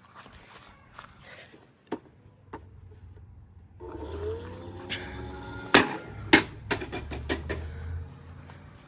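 Plastic toy washing machine being handled and broken apart: light clicks and knocks, then a low hum with a pitched tone about four seconds in, broken by several sharp, loud cracks.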